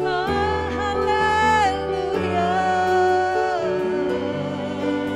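Church worship music: a singer holds two long sung phrases, the second a drawn-out "Haleluya", over a band's sustained chords and bass.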